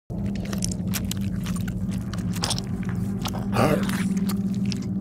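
Gore-style crunching and crackling, many short snaps like something wet being bitten or twisted apart, with a louder rasping tear about three and a half seconds in, over a steady low drone.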